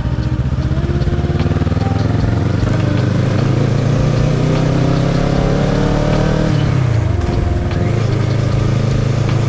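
Kawasaki ER-6n's parallel-twin engine under way, its pitch climbing steadily as it pulls for several seconds, then dropping sharply about seven seconds in before running steady again.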